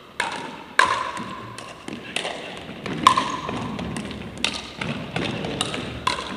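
Pickleball paddles striking a plastic pickleball in a rally: about five loud, sharp pocks at irregular intervals, each ringing briefly and echoing around the gymnasium, with fainter taps in between.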